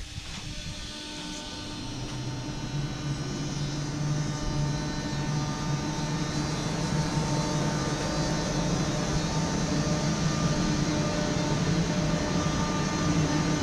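Dutch NS 1700-class electric locomotive pulling out with a passenger train, a steady hum of several tones that grows louder over the first few seconds as it gathers speed past the platform.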